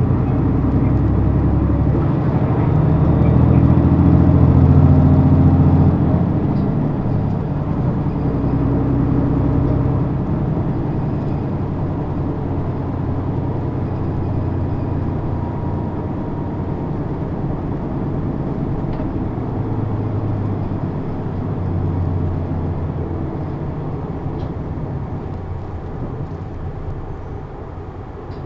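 Running sound of an Isuzu PKG-LV234N2 city bus, heard on board, with its six-cylinder turbo diesel under load. The engine pulls hardest in the first six seconds, eases off about six seconds in, then grows gradually quieter toward the end.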